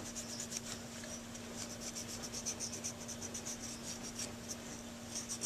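220-grit sandpaper rubbed in quick, short strokes over the tip of a Silverite metal Dukoff saxophone mouthpiece, a rapid rhythmic scratching at several strokes a second, over a steady low hum.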